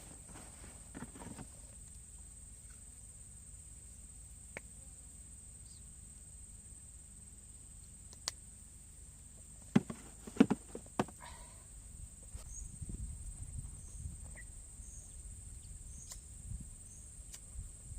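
Insects droning steadily at a high pitch. A few sharp knocks come about ten seconds in, and a low rumble builds in the last third.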